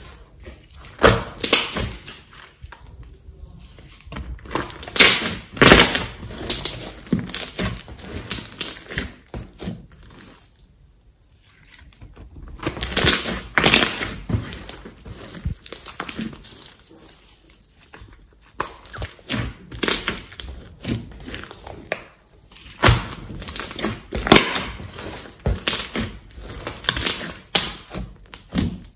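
Thick glossy slime squeezed, folded and pressed by hand, giving irregular wet squelches, clicks and crackling pops in clusters, with a couple of short quieter pauses.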